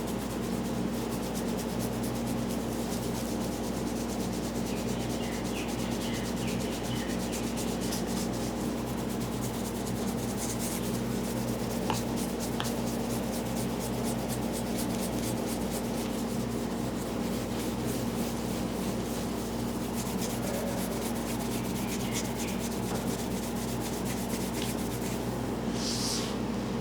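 Fast, even rubbing strokes of a head massage close to the microphone, over a steady low hum.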